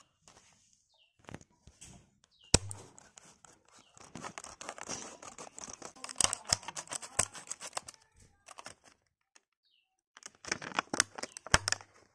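Clear plastic blister packaging being pried apart and torn by hand, crackling and crinkling. A sharp snap comes about two and a half seconds in. The crinkling pauses for about two seconds near the end, then starts again.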